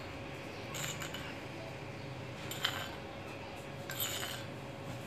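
A metal spoon scraping and clinking against a stone mortar as ground red chili chutney is scooped out. There are a few short scrapes, about a second in, near the middle and about four seconds in, over a faint steady hum.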